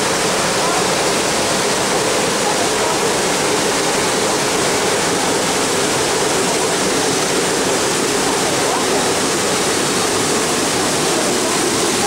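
Steady, even rush of a waterfall and river water pouring over rocks into a pool.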